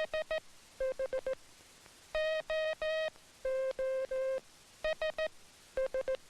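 Hand-keyed Morse code tones: a quick run of short dits, then three long dahs, then dits again. Each group is sent in a higher tone and answered by the same pattern in a slightly lower tone, one operator copying the other's sending by imitation.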